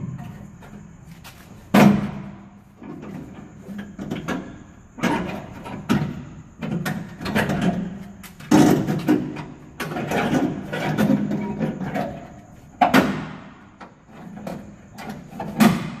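Irregular knocks and thumps on a Chevrolet Express van's sheet-metal cargo door as it is handled and worked on, with a ringing after the loudest hits. The sharpest bangs come about two seconds in, near thirteen seconds and just before the end, with smaller knocks and rattles between.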